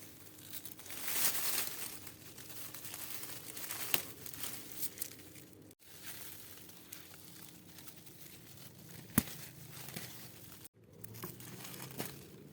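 Leaves and stems rustling and crackling as vegetables are picked by hand, with a few sharp snaps.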